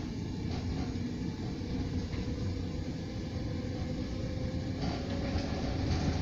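S9 suburban train in motion heard from inside the carriage: a steady rumble of wheels on the track with a faint whine that rises slightly in pitch. The noise grows brighter about five seconds in.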